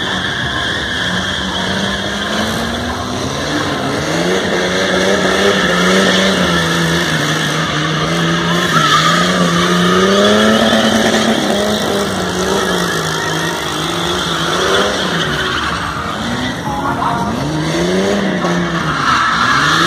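A car's engine is revved up and down over and over while its tyres skid and squeal as it spins in tight circles on concrete.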